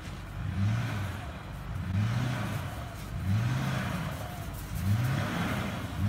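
Ford 4x4 pickup truck's engine running under load as it tows a horse trailer through snow, a low tone rising and falling about once a second.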